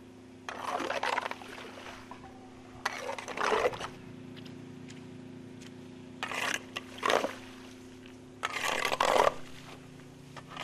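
Shovel scraping and sloshing through wet mud and shallow floodwater in about five irregular strokes, over a steady low hum.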